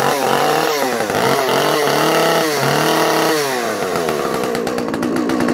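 A Tondu 45 two-stroke chainsaw (believed to be a rebadged Alpina Pro 45) running erratically just after starting, its engine speed surging up and down several times before settling lower. It fires but is not running right.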